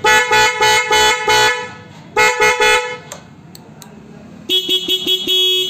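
Aftermarket 'Jalwa' pop horn on a motorcycle sounding in fast pulsing toots, about four a second. It stops about a second and a half in and gives another short burst after two seconds. Near the end it plays a lower-pitched run of toots.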